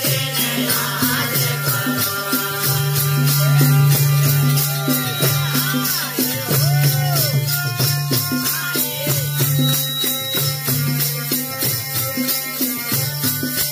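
Instrumental bhajan music: a harmonium holding steady chords over a quick, even beat of hand drum and jingling metal percussion.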